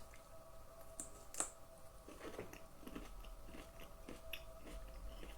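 Faint close-up chewing and biting of a firm, undercooked oven-roasted carrot. There are two sharp clicks about a second in, then soft, uneven chewing strokes.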